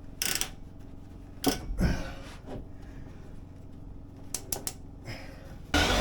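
Scattered sharp clicks and knocks of pliers and water-line clamps being handled, with a quick run of three clicks about four and a half seconds in. Near the end a louder steady rushing noise cuts in abruptly.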